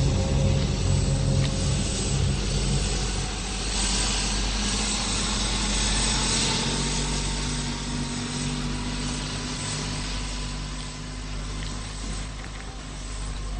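Hovercraft engine and lift fans running with a loud rush of air and spray. The rush swells a few seconds in, then the sound slowly fades as the craft moves away.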